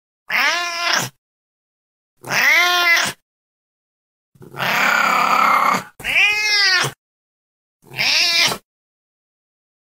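Domestic cat meowing: five separate meows, each rising and then falling in pitch. The third is longer and rougher than the others.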